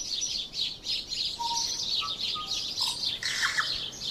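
Birds chirping: a dense, continuous chatter of high chirps, with a few short, lower whistled notes scattered through it.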